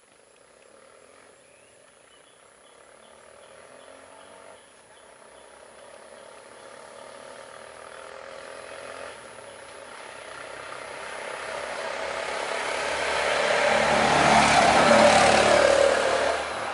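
A motor vehicle approaching on the road, its engine and tyre noise growing steadily louder. It is loudest about two seconds before the end, then drops off suddenly.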